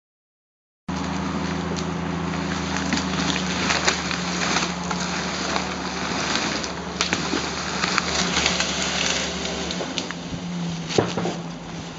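A Green Goddess fire engine's engine running steadily while its water jet hisses and splashes, with irregular sharp splash spikes. About ten seconds in, the low engine hum drops away and the splashing goes on.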